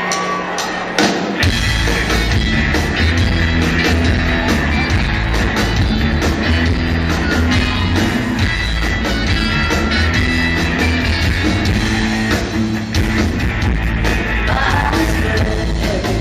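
Rock band playing live. After a held note and a few sharp strikes, the full band comes in about a second in, with heavy bass and drums, and plays on steadily.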